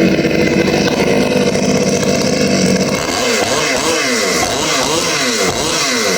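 Ported 62cc two-stroke chainsaw engine fitted with a Husqvarna 372XP carburettor, running hard at high revs for about three seconds while warming up. It then has its throttle blipped repeatedly, the revs rising and falling about twice a second.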